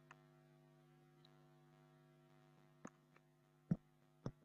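Faint steady electrical hum with a few computer mouse clicks; the loudest click comes late.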